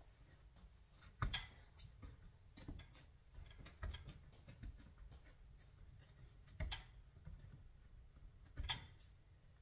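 Hands pressing and rolling bread dough into a loaf on a countertop: soft handling noise with a few sharp taps, the loudest about a second in and two more in the last few seconds.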